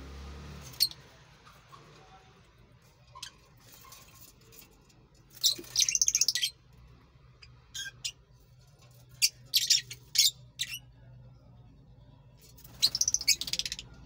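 Fischer's lovebirds calling: shrill, high-pitched chirps scattered throughout, with louder clusters of rapid chattering about halfway through, around ten seconds in, and near the end.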